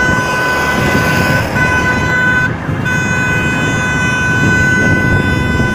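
A car horn held in one long steady blast, broken briefly twice, over the rushing noise of moving cars and wind.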